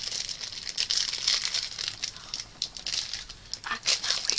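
Thin plastic candy wrapper crinkling as it is handled close to the microphone, in irregular crackles that ease briefly about three seconds in.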